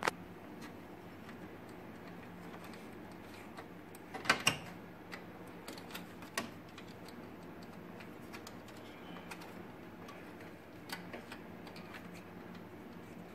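Scattered light clicks and taps of small parts being handled, with a louder clatter about four seconds in, over a steady low hum.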